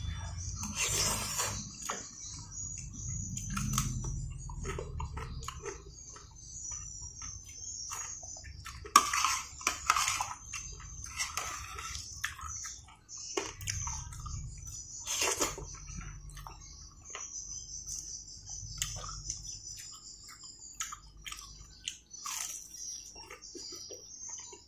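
Close-up eating sounds of rice porridge: a metal spoon clinking and scraping on a plate at irregular moments, with wet chewing and slurping in between. A faint steady high hiss runs underneath.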